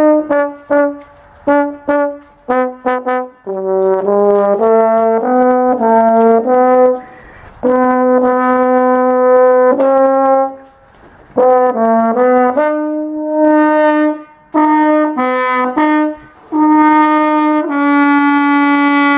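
A brass instrument played solo: a melody of short, tongued notes and longer held notes in a low-to-middle register, in phrases broken by short breaths.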